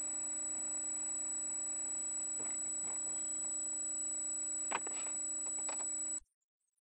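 Steady electrical hum and hiss with a few faint knocks, one a little louder near the end; it cuts off abruptly.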